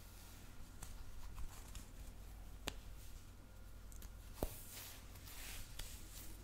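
ASMR scratching and rubbing close to the microphone: a soft, scratchy hiss with scattered light ticks and two sharper clicks, the louder one about four seconds in.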